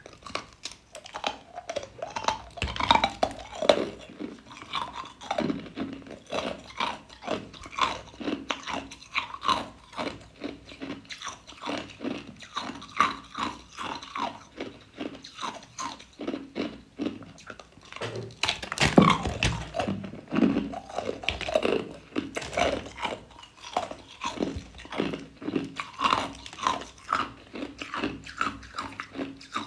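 A person biting off and chewing pieces of clear ice cubes from a slab of joined cubes: a rapid, uneven run of sharp crunches and cracks, with the loudest bite about two-thirds of the way through.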